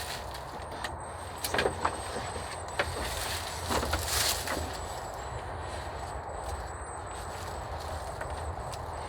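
A handful of sharp cracks and knocks, bunched between about one and a half and four and a half seconds in, over a steady low rumble and a thin, steady high whine.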